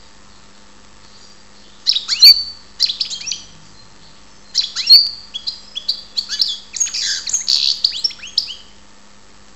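European goldfinch singing: two bursts of quick twittering song with sweeping high notes, a short phrase about two seconds in and a longer one of about four seconds starting near the middle.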